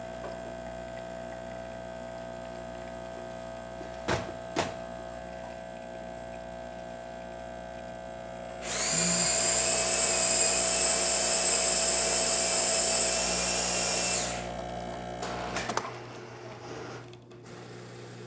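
Breville Barista Express pump humming steadily while an espresso shot pulls, stopping about fifteen seconds in, with a couple of light knocks early on. In the middle, a much louder high whirring runs for about six seconds.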